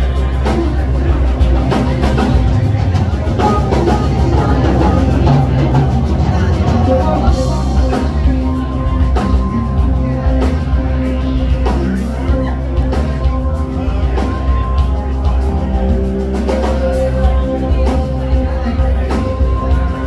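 Jam band playing rock live, heard from the audience through the venue's sound system: drum kit keeping a steady beat under electric guitars and bass, with long held guitar notes.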